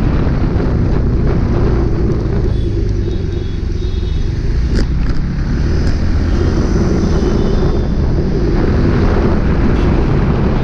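Motorcycle being ridden through city traffic: steady engine rumble mixed with wind noise on the microphone, with faint horns from other vehicles a few seconds in.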